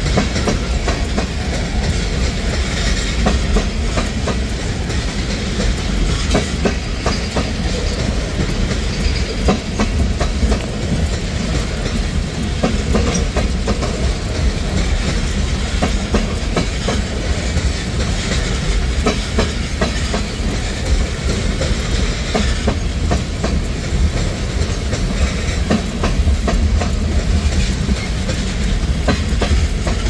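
Freight train tank cars rolling past, steel wheels clacking over the rails with a steady low rumble and frequent sharp clicks.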